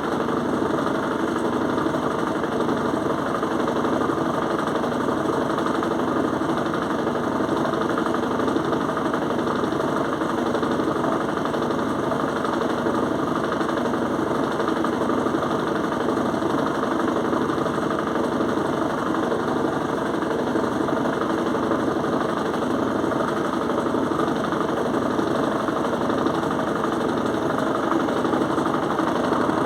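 Electrolux washing machine spinning a heavy duvet: a steady, loud mechanical running noise with no breaks. The noise startled the owner, who takes it for normal.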